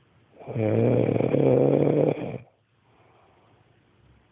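A woman snoring: one loud snore about two seconds long, starting about half a second in. It has a low buzzing pitch that rises briefly at its start and then holds steady.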